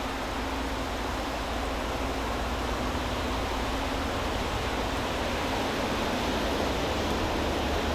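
Diesel freight locomotive approaching from a distance: a steady low rumble under a wash of noise, slowly growing louder.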